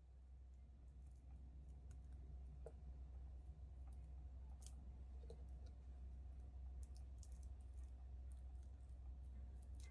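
Faint, irregular clicks and crackles of brittle dried anchovies snapped apart by hand to remove their heads and guts, over a low steady hum.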